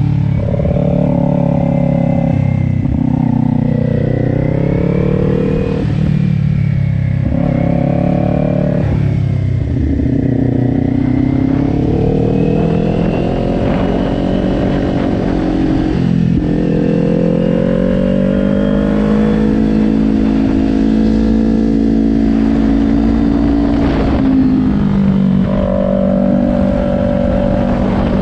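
2020 Kawasaki Ninja 400's 399 cc parallel-twin engine heard from the rider's seat at track speed, its note rising and falling several times as the rider gets on and off the throttle through the corners, over a steady low rush.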